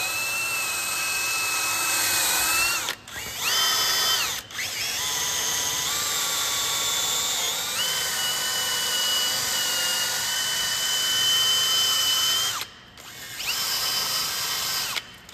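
Electric drill spinning a wire wheel to scrub rust off a brake caliper bracket, in about four runs with brief stops between. The motor whine rises in pitch each time it spins up, then holds steady.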